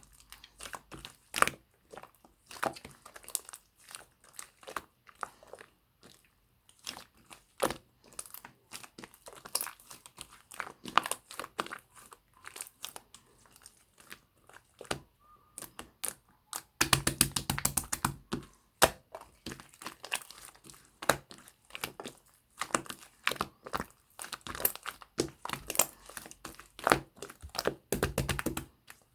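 Orange clear slime mixed with small round beads being kneaded and pressed by hand, giving a steady run of crunchy clicks and pops. Around 17 s and again around 27 s in, it breaks into denser, louder stretches of rapid crackling.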